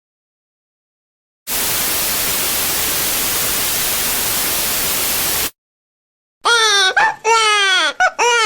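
A steady burst of static-like white noise, about four seconds long, starting and stopping abruptly. After a short gap, several bleating animal calls begin near the end, each falling in pitch.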